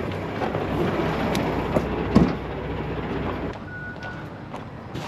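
Semi-truck's diesel engine running at idle, with a few knocks as the driver climbs down from the cab; the engine sound drops off about three and a half seconds in, and a short high beep sounds just after.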